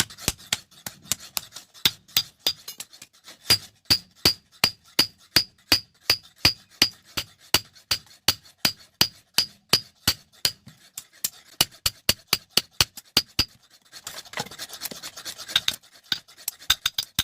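A hammer striking metal over and over, about three blows a second, each with a short ring. There are stretches of rasping or scraping metalwork near the start and near the end.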